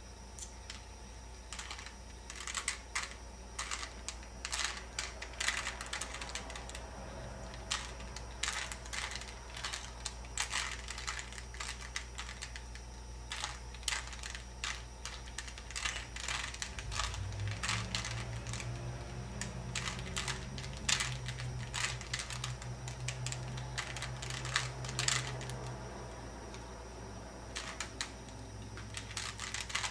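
Plastic Rubik's Cube being turned by hand, its layers clicking and clacking in quick, irregular runs as the first layer is solved.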